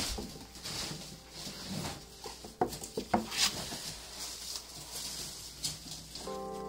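A miniature dachshund puppy's claws scratching and scrabbling on the walls and floor of a cardboard box, as irregular light scrapes and taps. Background music comes in near the end.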